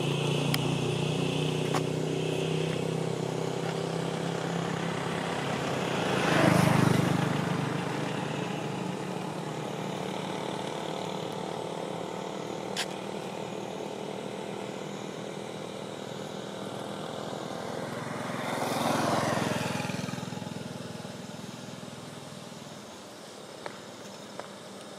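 Passing motor vehicles: engines running, with one passing loudest about six seconds in and another around nineteen seconds, then fading toward the end.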